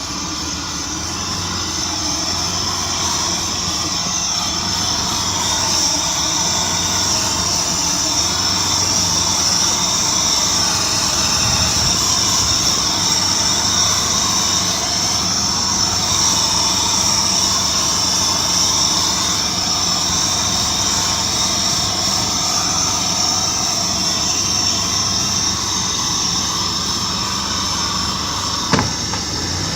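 Vehicle engine with a bad fuel pump, kept running on carburettor cleaner, running steadily with a high steady whine over a low hum; one sharp click near the end.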